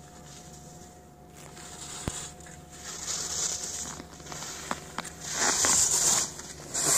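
Skis carving on packed snow, a scraping sound of the edges that grows louder turn by turn as the skier comes close and is loudest near the end, with a few sharp clicks along the way.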